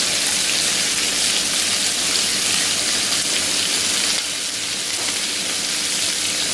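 Squid rings and tentacles sizzling steadily in hot oil in a frying pan, easing slightly about four seconds in.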